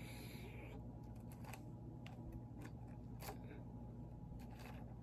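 Faint fingernail scratching and a few soft ticks as a sticker is picked and peeled off a spiral notebook's cover, over a low steady hum.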